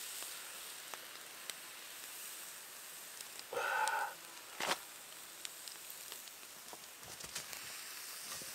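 Bacon strips sizzling on a wire cooling rack over a campfire: a steady high hiss with scattered small crackles and pops. About three and a half seconds in, a brief louder noise lasts half a second, followed by a single sharp snap.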